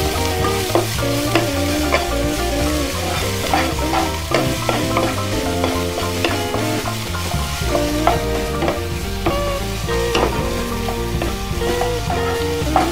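A wooden spatula stirring and scraping vegetables in a non-stick wok, with irregular clicks and scrapes against the pan over the sizzle of the oil. Background music plays underneath.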